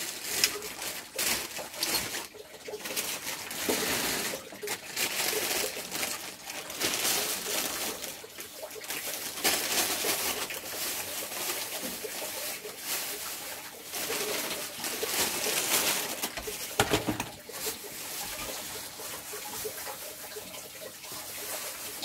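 Caged lovebirds calling and chattering: a harsh, scratchy sound in repeated bursts of about a second.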